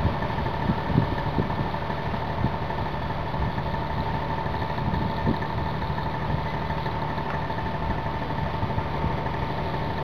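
Steady hum of an idling engine: a constant high tone over a low drone, with small low knocks now and then.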